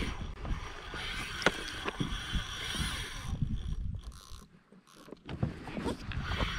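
Water slapping against a plastic kayak hull with wind on the microphone and scattered knocks while a hooked catch is fought on rod and reel. The sound drops away almost to nothing for about half a second around four and a half seconds in.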